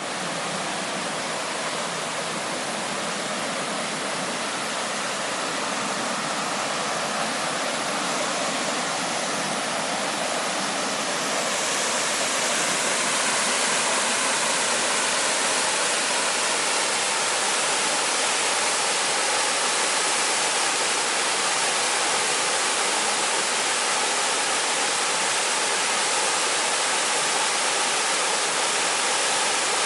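A 15-metre waterfall's steady rush of falling water, growing a little louder and brighter about twelve seconds in.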